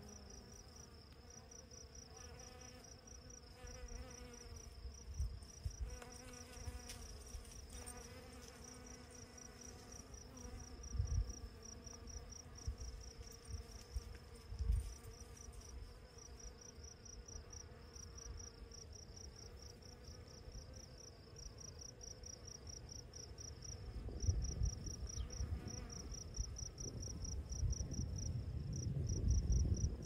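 Insects chirping: a steady high trill of rapid, even pulses. Gusty low rumbles of wind on the microphone come and go and are heaviest in the last few seconds.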